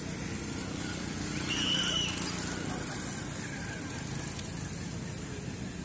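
Steady low engine rumble, with one short high-pitched squeal about a second and a half in.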